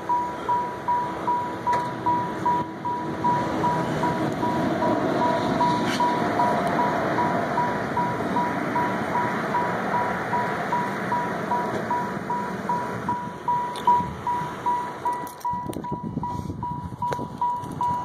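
Car's warning chime ringing over and over, a single high beep repeating about two to three times a second without a break.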